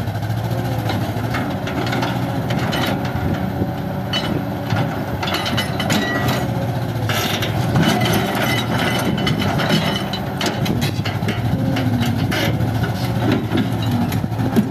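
Kobelco SK200 hydraulic excavator's diesel engine running steadily under work, with repeated knocks and scrapes as the steel bucket works through broken concrete rubble.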